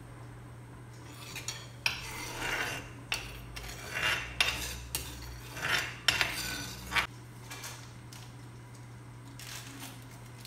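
Kitchen utensils clinking and scraping against cookware: a few sharp clicks and short scraping strokes between about two and seven seconds in, over a steady low hum.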